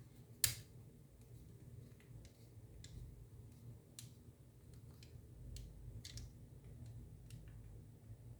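Scattered light clicks and taps of an Xbox controller's plastic shell and parts being handled and pressed together during reassembly, the sharpest about half a second in, over a faint low hum.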